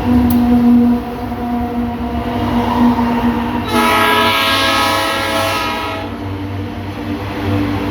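Freight train's diesel locomotive running with a steady low drone. Its horn sounds one blast of about two seconds, starting a little under four seconds in.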